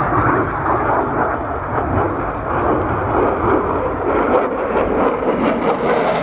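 Dassault Rafale fighter jet flying past, its twin turbofan engines giving loud, steady jet noise; the deepest rumble eases a little about four seconds in.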